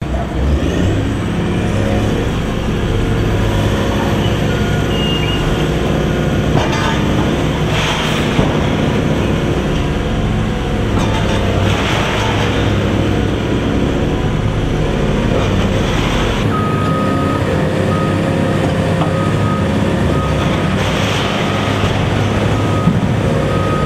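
Diesel engines of large tracked hydraulic excavators (Cat 345B, then Hitachi Zaxis 350LC) running under load as their buckets tear into a concrete wall. Every few seconds there is a short crunch of breaking concrete and falling rubble. About two-thirds in the engine sound changes as the second machine takes over.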